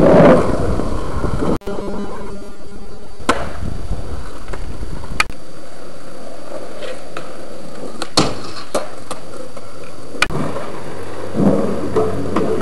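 Skateboard wheels rolling on a skatepark surface, with several sharp clacks of the board hitting the ground a second or two apart.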